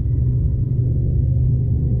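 Steady low rumble of a V/Line diesel passenger train running, heard from inside the carriage.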